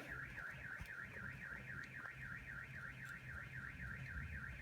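Car alarm sounding in the distance: a steady high warbling tone that rises and falls about four times a second.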